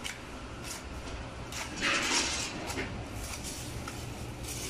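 Light knocks and clicks of a precast concrete panel being handled and positioned, with one brief louder scrape about two seconds in, over a steady low hum.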